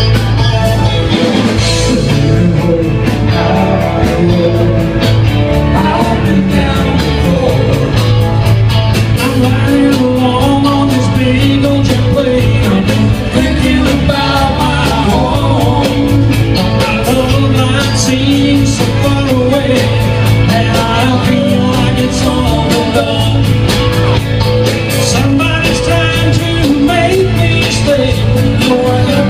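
A live rock band playing, with a singer and a steady drum beat.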